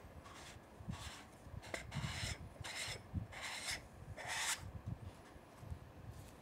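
Fingers turning a screw-on UV filter on the front threads of a camera lens, giving a string of short dry rubbing scrapes. The loudest scrape comes about four and a half seconds in, and only faint rubs follow.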